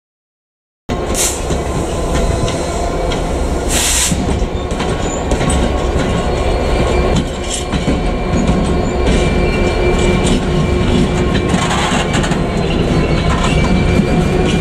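Class 66 diesel locomotive's EMD two-stroke V12 engine running as it moves slowly along with flat wagons, wheels clicking over the rail joints. Two short high-pitched hisses come about a second and about four seconds in, after a brief silent gap at the very start.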